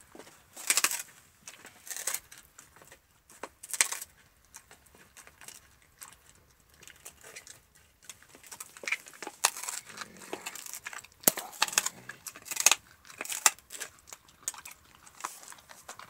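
Alaskan malamute chewing a raw meaty bone: irregular wet crunches and cracks as its teeth work the bone, a few single bites in the first seconds, then a quicker run of crunching in the second half.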